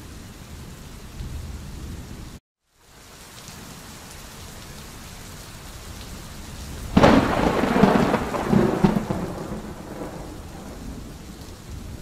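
Steady heavy rain, with a sudden crack of thunder about seven seconds in that rumbles on for a few seconds before fading back into the rain. The sound cuts out completely for a moment about two and a half seconds in.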